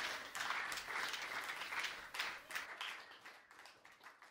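Applause, dense at first, then thinning to a few scattered claps and fading out.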